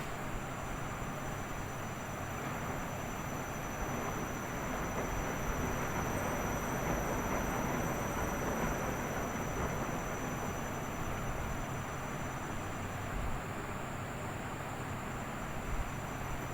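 Washing machine running: a steady rumbling rush that swells a little in the middle, with a faint steady high whine above it.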